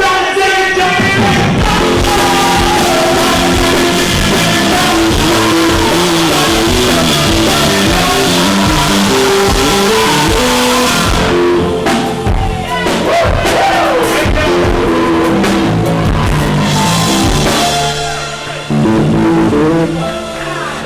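Live band playing a song, with drums, bass and guitar, loud through the club's sound system, the vocal faint in the mix; the music drops off near the end.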